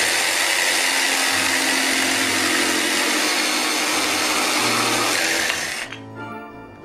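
Electric jigsaw sawing through a thick wooden block: a steady buzz of the reciprocating blade that stops abruptly a little before six seconds in.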